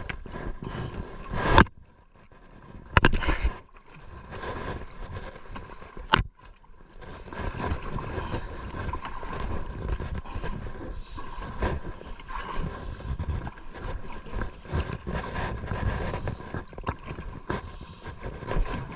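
Water sloshing and lapping against a small outrigger boat's hull, with three sharp knocks in the first six seconds.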